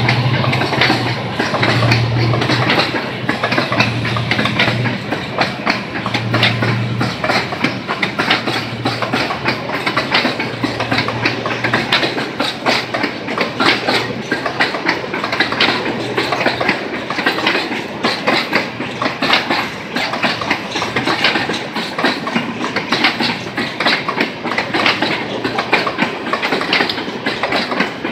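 Freight train of oil tank cars rolling past close by: steel wheels clattering over rail joints. A low drone fades out over roughly the first dozen seconds.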